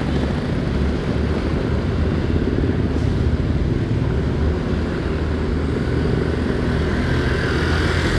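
Motorcycle running steadily at road speed while being ridden, with a constant rush of road and traffic noise.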